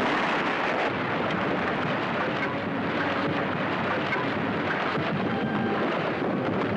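Film sound effect of an explosion's aftermath: a dense, steady rush like dirt and debris raining down over a low rumble. Faint music comes in near the end.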